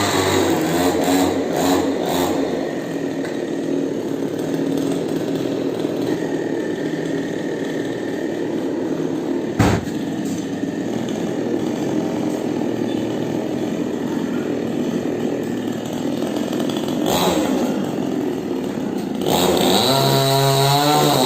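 Chainsaw running steadily as it cuts into a coconut tree, with one sharp knock about halfway through.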